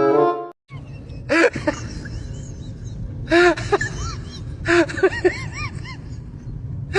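Orchestral string music stops about half a second in; then a pet, cat or dog, gives short rising-and-falling cries in three bouts over a steady background hiss.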